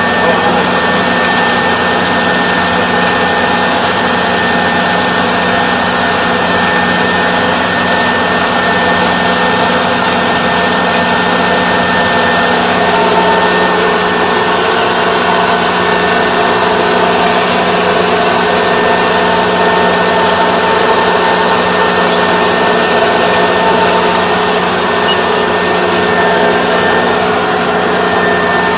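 Engine-driven machinery running steadily: a loud, even drone with a constant high whine.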